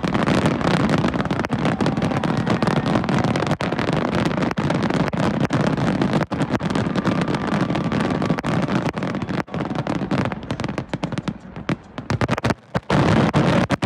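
Fireworks going off in a dense, continuous barrage of crackles and pops, easing briefly near the end before picking up again.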